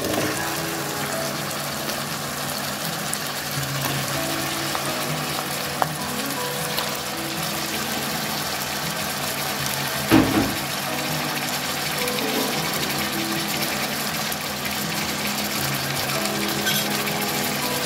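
Mutton pieces frying in hot oil and spices in a steel pot, a steady sizzle, with background music playing over it. A single sharp knock about ten seconds in.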